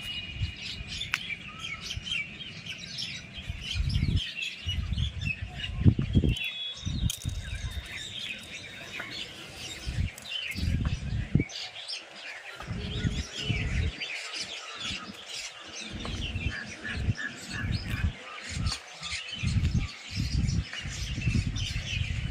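Many small birds chirping at once, a busy chorus of short high chirps, over irregular low rumbling that comes and goes.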